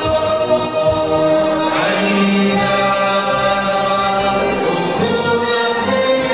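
A group of men and women singing a patriotic song together in chorus, holding long notes.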